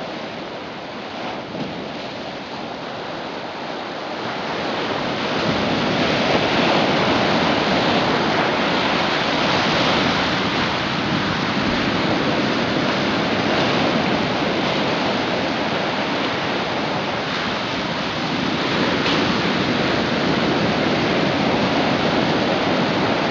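Steady wash of ocean surf, growing louder about five seconds in and then holding steady.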